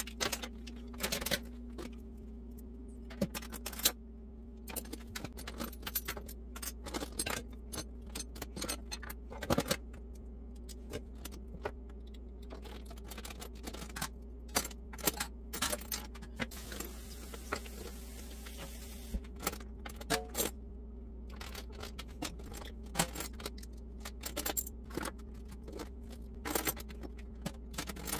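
Metal cutlery and kitchen utensils clinking and clattering irregularly as they are picked up, moved and set down by hand in a drawer and a plastic cutlery tray. A steady low hum runs underneath.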